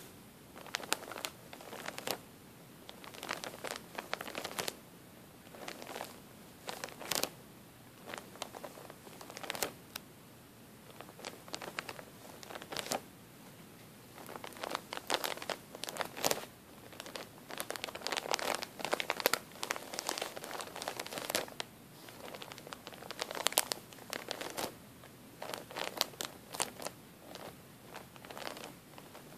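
Fingers pressing and rubbing on a thin plastic bag packed with cotton balls, giving soft, irregular crinkles and crackles in clusters.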